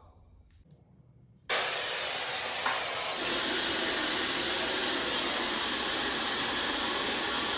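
White noise test signal: a steady, even hiss that switches on suddenly about one and a half seconds in and grows slightly brighter a couple of seconds later.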